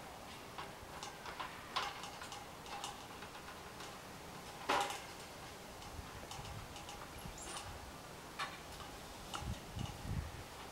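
Irregular light clicks and taps, the loudest about halfway through, with a few low dull thumps in the later part.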